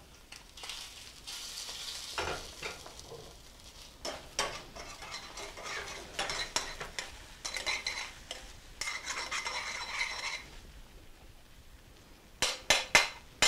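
Metal tongs stirring and scraping crumbled chorizo around a stainless steel skillet, with a light sizzle of the rendered fat. Near the end come a few quick, sharp metallic clicks.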